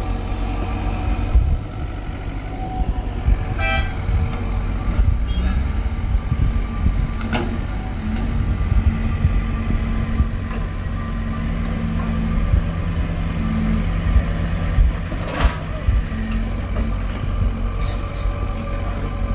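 Diesel engine of a compact crawler excavator running steadily under load as it tows a loaded truck up a dirt slope, a deep low rumble. A few sharp knocks cut through it, one about seven seconds in and another near fifteen seconds.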